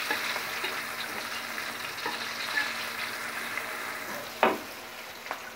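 Chopped shallots, garlic and bird's-eye chilies sizzling in hot oil in a wok while a metal spatula stirs them, with small scrapes and ticks of the spatula on the pan. One louder knock of the spatula against the wok comes about four and a half seconds in.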